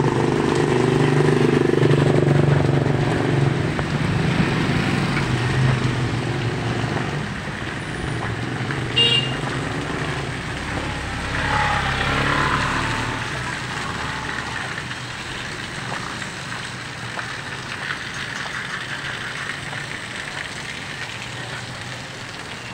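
A motorcycle tricycle's engine running close by, then fading away over the first several seconds, over the steady hiss of rain on a wet street. A brief high tone sounds about nine seconds in, and a passing swell comes around twelve seconds.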